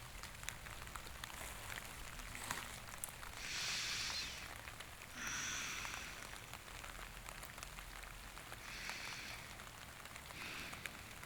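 Faint, steady rain falling on a surface, with three brief, soft hissing swells a few seconds apart.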